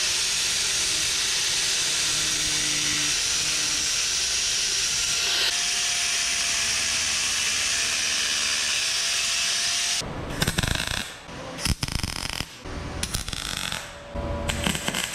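Angle grinder cutting through the metal tabs of a seat base, running steadily for about ten seconds and then stopping abruptly. Short, irregular bursts of electric welding follow.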